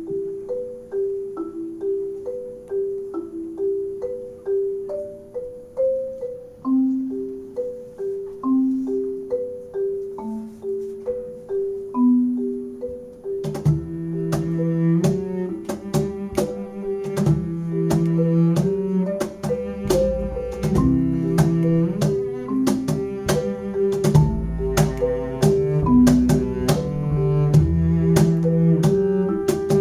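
Instrumental band intro: a marimba plays a repeating figure alone, then about 13 seconds in a cello and percussion come in under it and the music fills out.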